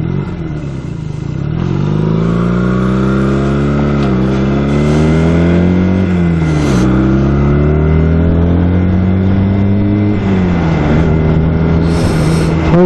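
Motorcycle engine heard from the rider's seat, accelerating through the gears: the pitch climbs and drops back at each of three gear changes, then runs steadier near the end.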